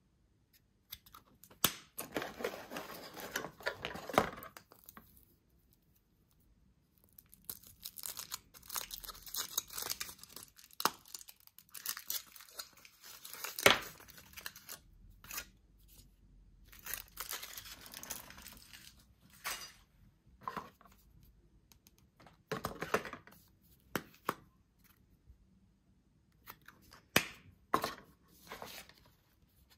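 Foil wrappers of Kinder Surprise chocolate eggs being torn and crinkled by hand, in stretches of rustling with pauses between them. Sharp clicks and snaps come in among the rustling, the loudest about two-thirds of the way in.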